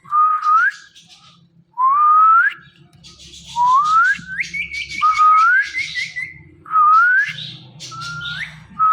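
Indian ringneck parakeet whistling: a string of short whistles, each rising in pitch at the end, repeated about seven times. Midway comes a quick run of short chirped notes.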